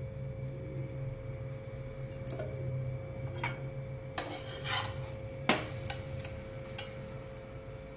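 Steel spatula clinking and scraping against a non-stick tawa as a roasting poli is pressed and turned: a few sharp clicks between about two and seven seconds in, the loudest about halfway through, over a steady hum.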